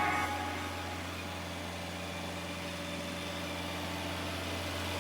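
Tracked asphalt paver's engine idling steadily with a low, even hum, after the tail of background music fades out in the first moment.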